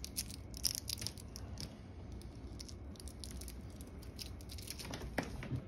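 Plastic Smarties candy wrapper crinkling between fingers in quick, irregular crackles, densest in the first second or two and then fainter, with a few light ticks near the end.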